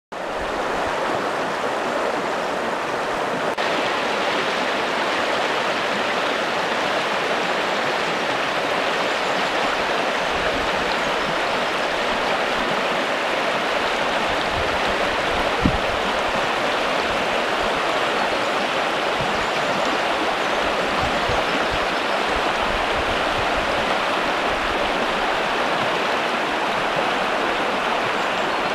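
River water rushing over and around rocks in fast, foaming rapids: a steady, full rushing noise. One brief knock sounds about halfway through.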